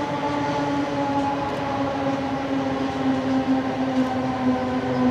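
Three GE C44ACi diesel-electric locomotives hauling a loaded coal train across a bridge, running with a steady pitched drone over a rumble. The pitch sinks slowly as they pass.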